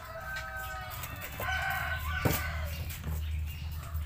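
Chickens calling, two drawn-out calls, with a single sharp knock a little past halfway and a low steady hum underneath.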